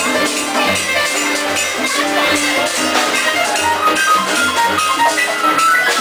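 Latin jazz band playing live, with the piano taking quick runs of notes over a pulsing bass and percussion.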